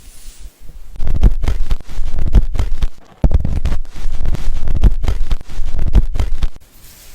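Loud, close scrubbing and rubbing of hands working through hair and scalp during a hair wash, in two long bursts with a short break about three seconds in.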